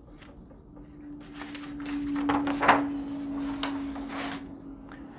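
Large sheet of flip-chart paper rustling as it is lifted and flipped over the top of the pad, starting about a second in and loudest about halfway through, over a faint steady hum.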